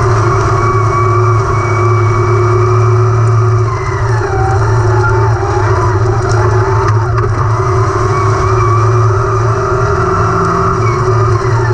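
Wingless sprint car engines running hard in a dirt-track race, a loud steady drone whose pitch dips and climbs again a couple of times as the cars go through the turns.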